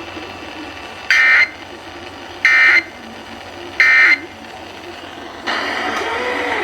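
Emergency Alert System end-of-message tones broadcast over radio: three short, harsh data bursts, evenly spaced about a second and a half apart, marking the end of the alert test. Steady radio hiss lies under them, and it gets louder about five and a half seconds in.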